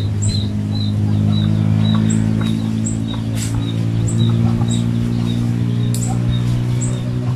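A bird chirping over and over, short high chirps about two or three a second, over a loud steady low drone.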